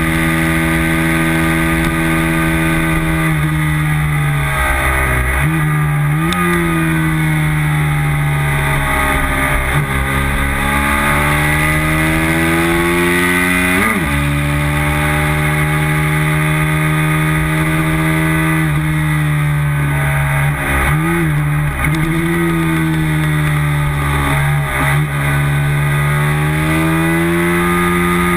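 A race motorcycle's engine at high revs, heard from a camera on the bike's own tail, over the rush of wind. Its pitch holds high on the straights and drops briefly and sharply at each gear change. It falls through runs of downshifts a few seconds in and again past the middle, then climbs again.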